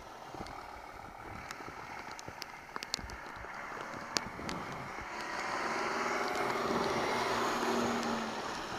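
Wind and road noise of a bicycle ridden on a wet street in rain, with scattered sharp ticks. From about five seconds in, a car overtakes close by, its engine and tyres on the wet road swelling to the loudest point and easing off near the end.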